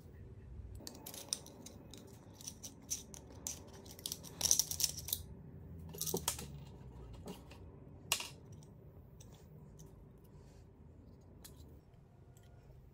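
Small steel parts of a dismantled car oil filter clicking and scraping against each other as they are handled and fitted together by hand. The noise comes in quick clusters of clicks and scrapes, busiest around the middle, with a single sharp click a little after eight seconds, then dies away.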